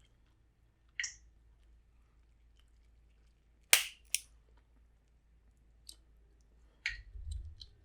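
Close-miked eating and food handling from a seafood boil: scattered small clicks and mouth sounds, with two sharp cracks a little under four seconds in, about half a second apart.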